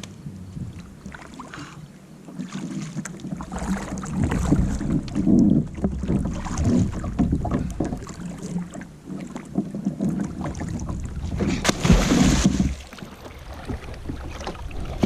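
Water splashing and sloshing against a plastic sit-on-top kayak as a person moves about in and beside it, in irregular surges, with a louder splash about twelve seconds in.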